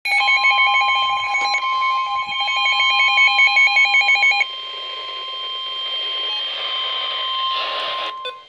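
Emergency Alert System alert tones: a fast, warbling electronic tone over a steady high beep for about four and a half seconds, then the steady beep alone with some hiss, ending shortly before the end.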